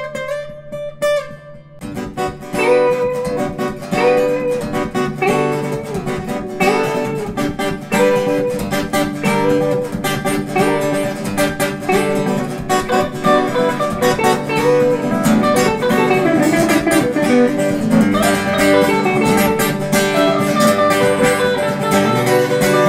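Background music led by acoustic guitar: a few sparse plucked notes, then a steady strummed rhythm from about two seconds in.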